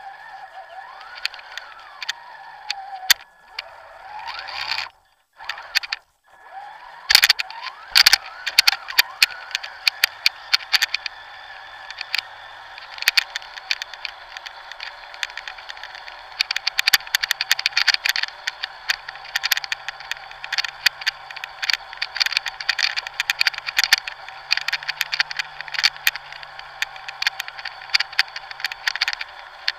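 Traxxas TRX-4 Sport RC crawler driving over dry leaves, heard from a camera on the truck: a steady electric motor and gear whine that rises and falls in pitch, with constant crackling and clattering from leaves under the tyres and the rattling chassis. The sound drops out twice briefly about five and six seconds in.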